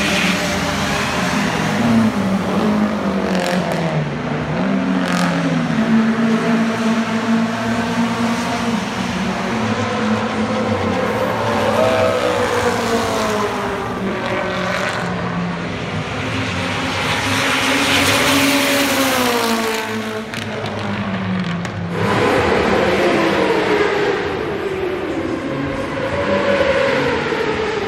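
Proton Satria race car's engine running hard as the car passes at speed, its pitch climbing through each gear and dropping at each shift. About three quarters of the way through, the sound changes abruptly to a differently recorded engine sound.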